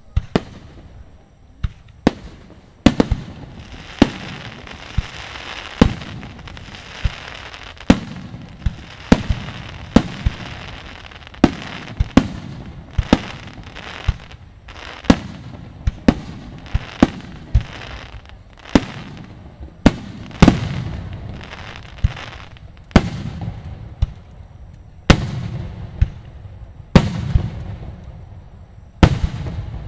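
Aerial fireworks shells bursting in quick succession, about twenty sharp bangs one every second or two. From about three to ten seconds in, a crackling hiss of glittering effects fills the gaps between the bangs.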